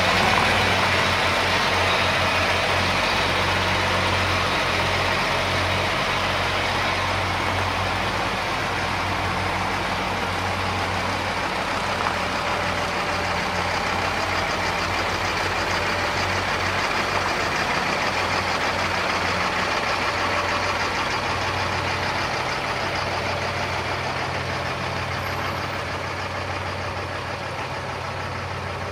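Heavy diesel trucks driving slowly past: a crane carrier and a MAN tractor unit pulling a low-loader trailer, engines running steadily. The sound gradually fades as they move away.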